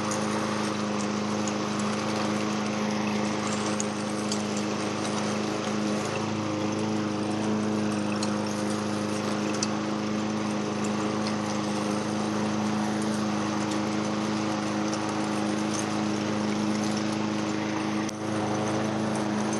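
Small gasoline engine running steadily at a constant speed, with a brief dip in level near the end.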